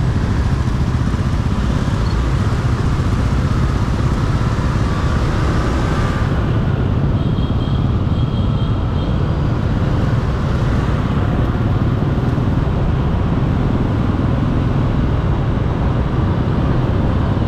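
Riding a scooter in dense city traffic: a steady rumble of motorbike and car engines and road noise. Three faint short beeps come near the middle.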